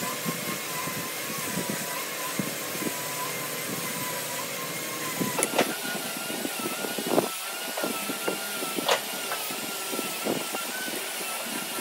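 Light clicks and taps of a steel ruler and pen being set down and moved on a wooden beam while marking out, over a steady high whine from a motor running in the background.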